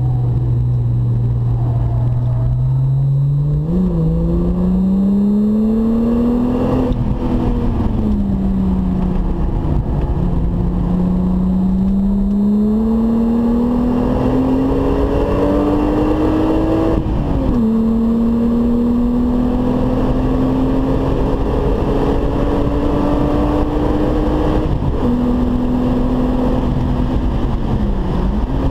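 VW Golf 3's VR6 engine at full throttle, heard from inside the cabin, pulling hard through the gears. The engine note climbs, falls back with upshifts about 7 and 17 seconds in, then makes a long slow climb in the higher gear. Near the end it eases off as the car lifts for braking.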